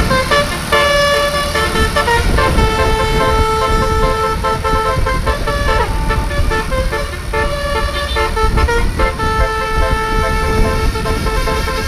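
Indonesian 'telolet' bus horn, a Basuri multi-tone air horn, playing a tune of held notes that step up and down in pitch, over a steady low rumble.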